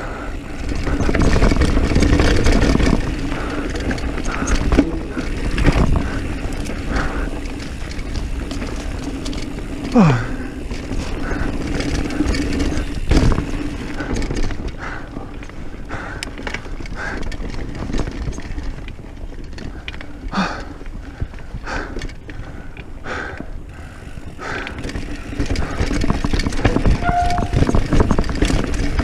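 Diamondback Mission 1 mountain bike descending a dirt trail at speed, heard from the handlebars: a steady rush of tyres on dirt with the bike rattling and knocking over bumps and roots. A short falling squeal comes about ten seconds in.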